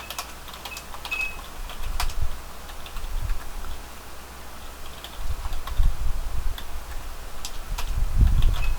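Computer keyboard typing: irregular, scattered keystroke clicks, with a few dull low thumps mixed in, loudest near the end.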